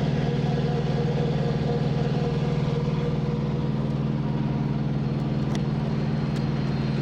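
Semi-truck diesel engine running steadily at an even, unchanging pitch.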